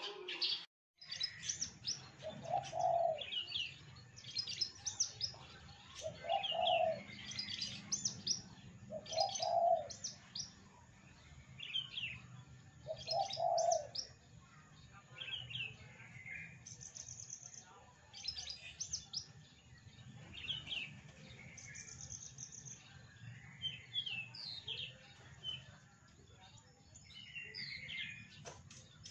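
Javan bush lark (branjangan) singing a long, varied string of short high chirps, trills and whistled phrases that mimic other songbirds. There are four short low notes in the first half, and a brief gap in the sound about a second in.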